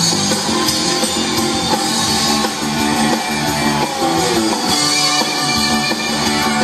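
A live soul band playing, with guitar to the fore over the drum kit.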